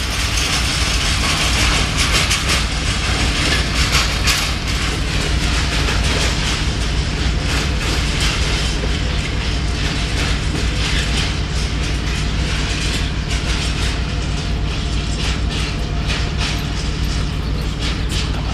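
Freight train of covered hopper wagons rolling past, steel wheels clattering over the rail joints: a steady rumble with frequent irregular clicks and knocks.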